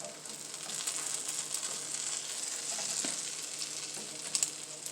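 Egg-soaked stuffed French toast sizzling in butter in a frying pan: a steady crackling hiss, with a few faint ticks late on.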